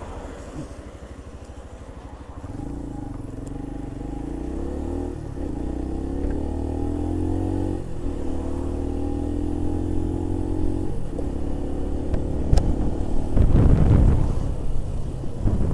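Keeway RKV 125's single-cylinder 125 cc engine idling, then pulling away and accelerating up through the gears. Its note rises three times and drops back at each of the gear changes, about every three seconds. Near the end a louder rush of wind and road noise comes in.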